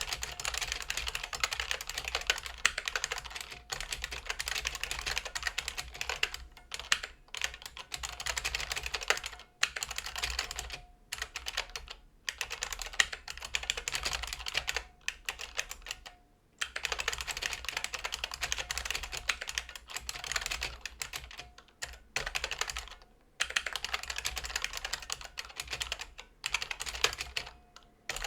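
IBM Model M keyboard's buckling-spring keyswitches clacking under fast, continuous typing, each keystroke a sharp click, in runs broken by short pauses between words and lines. A faint metallic ring follows some bursts, the spring ping typical of these switches.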